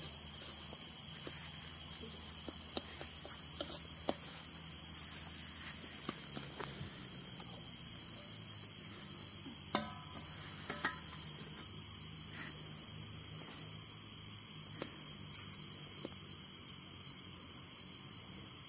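Crickets chirping steadily at night, a continuous high-pitched trill, with a few scattered short clicks and taps, the sharpest about ten seconds in.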